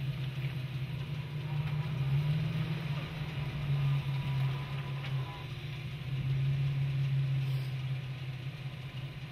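Jeep Wrangler's engine running steadily at low revs, its level dipping briefly about five seconds in before coming back up.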